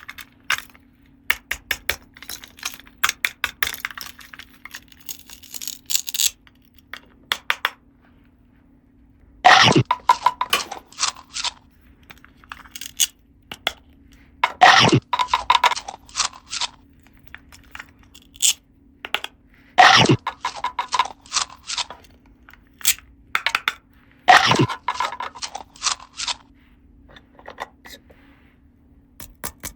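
Small plastic toy pieces clicking, tapping and clattering as they are handled, with four louder, fuller bursts about five seconds apart. A faint steady hum runs underneath.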